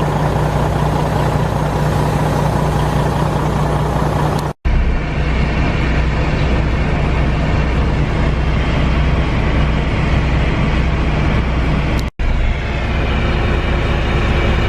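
John Deere combine harvester running steadily while cutting corn: a loud, even, low engine drone. The sound drops out abruptly for an instant twice, about four and a half and twelve seconds in.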